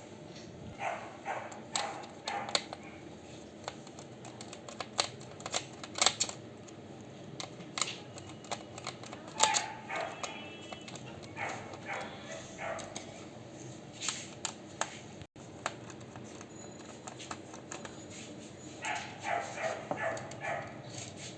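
Scattered clicks and taps of plastic laptop parts and small screws being handled during disassembly, with a dog whimpering and yipping now and then, most often near the end.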